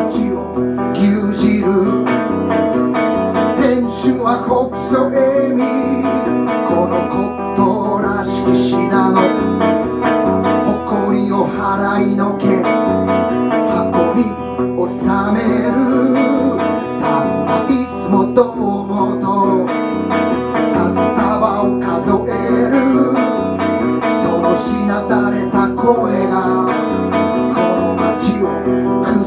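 A man singing while strumming an electric guitar: a solo live song with a steady strummed rhythm.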